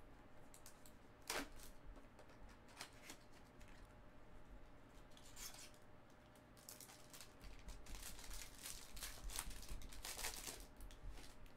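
Plastic and foil wrapping of a trading card pack being torn open and crinkled by hand, in faint irregular crackles that get busier in the second half.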